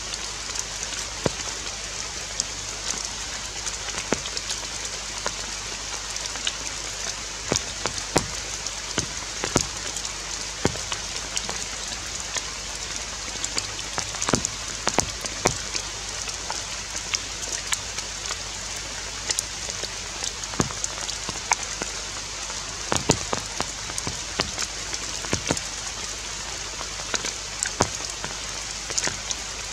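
Forest ambience: a steady high hiss with many irregular sharp ticks and taps scattered through it.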